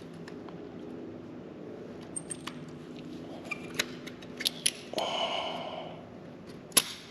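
Scattered small metallic clicks and taps as the brake-pad retaining pin is worked out of a motorcycle front brake caliper, with a sharper click near the end. A short hiss comes about five seconds in, over a faint steady hum.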